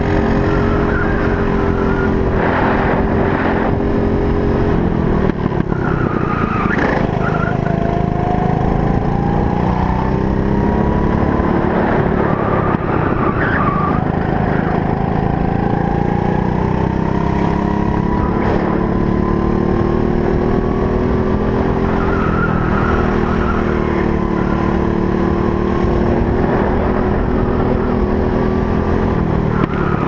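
Briggs & Stratton LO206 four-stroke kart engine running at racing speed. Its pitch climbs slowly along the straights and drops several times as it comes off the throttle for corners.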